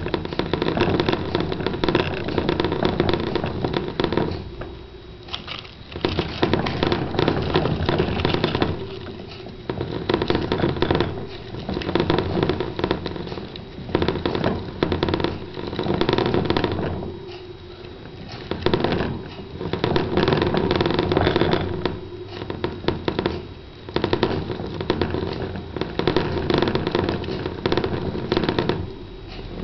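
Plastic hamster exercise wheel spinning fast under running Roborovski dwarf hamsters: a loud, continuous rattle and clatter that dips briefly every few seconds.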